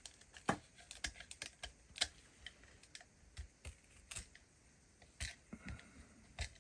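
Faint, irregular light clicks and taps of small plastic action-figure parts being handled and set down on a work surface, a few a second.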